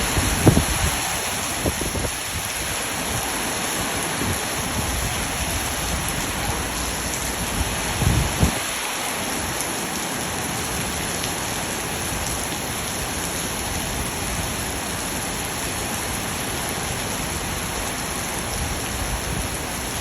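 Heavy storm rain pouring steadily. A few brief low rumbles or thumps come about half a second in, near two seconds and around eight seconds.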